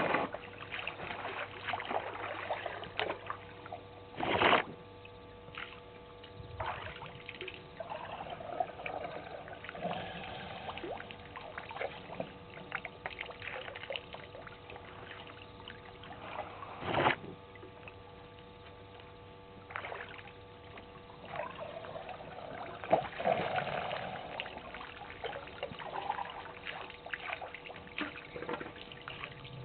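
African elephants drinking: irregular splashing and trickling of water as their trunks draw it up and spill it, with two louder splashes, one about four seconds in and one past the middle. A faint steady hum sits underneath.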